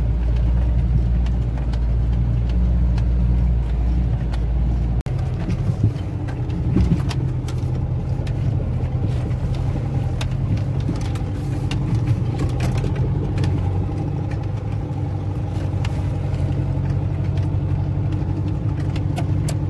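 Off-road 4x4's engine running steadily under load while driving up a snowy forest track, heard from inside the cab, with scattered clicks and knocks. The engine note changes abruptly about five seconds in.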